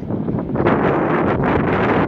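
Wind buffeting the phone's microphone: a loud, gusty rumble that swells about half a second in.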